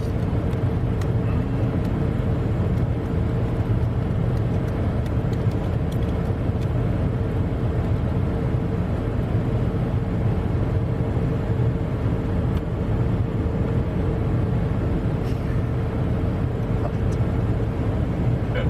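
Steady low rumble of a car's running engine and road-less cabin noise heard from inside the car, with one constant hum throughout.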